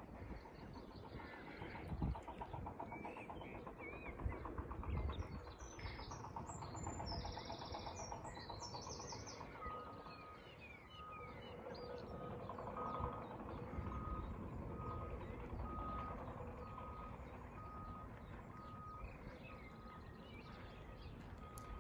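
Wind buffeting the microphone in gusts, with small birds chirping. About halfway through, a steady beeping starts and repeats roughly once a second, like a vehicle's reversing alarm.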